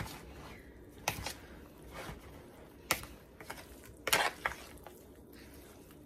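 A metal fork clinking and scraping against a white ceramic mixing bowl while stirring soaked bread pieces. There are about five sharp clinks at uneven intervals, two of them close together about four seconds in.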